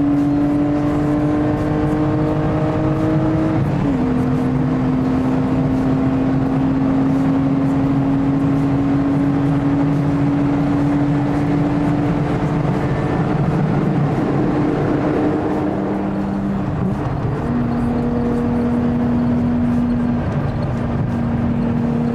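VW Vento VR6's 2.8-litre six-cylinder engine pulling hard at motorway speed, heard from inside the cabin with road and wind noise. The engine note climbs slowly, drops in pitch about four seconds in, then climbs slowly again.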